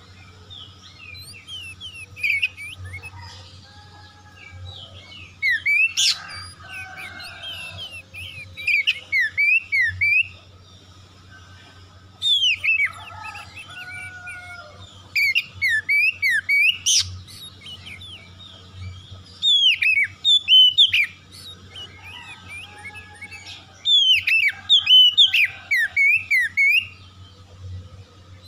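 Oriental magpie-robin (kacer) singing in full song: six loud phrases of rapid whistled notes sweeping up and down, each one to three seconds long, with short pauses between them.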